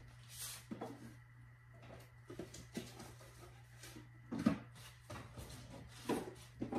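Quiet kitchen room tone with a steady low hum, broken by a few soft knocks and handling noises as someone moves about fetching things.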